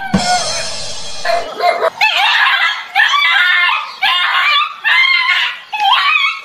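Small dog yipping and whining in a string of short, high, wavering calls, after a rushing noise in the first second or so.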